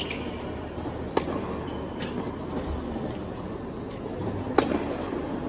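Tennis balls struck by rackets and bouncing on a hard court during a warm-up rally: about five sharp pops, the loudest about a second in and near the end, over a steady murmur of the arena.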